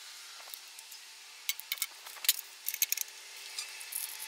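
Scattered light metallic clicks and clinks of small screws, nuts and a hand tool as a metal floorboard panel is fastened into a dune buggy's tube frame. The clicks come irregularly from about a second and a half in.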